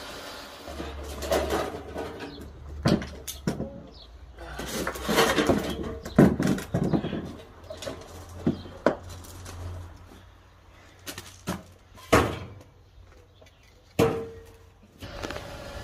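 Irregular knocks and clanks with some longer scraping, noisy stretches, as a steel-framed sand-casting mould is handled and opened after a pour of molten aluminium.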